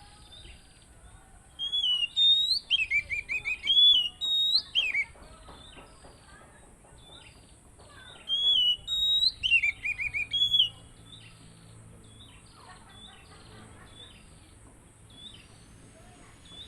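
Oriental magpie-robin (kacer) singing loud whistled phrases broken by quick trilled runs, in two bursts of about three seconds each, the second starting about eight seconds in. Faint short chips continue between and after the bursts.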